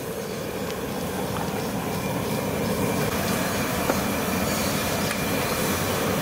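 Poppy seeds being ground into a paste, a steady grinding noise.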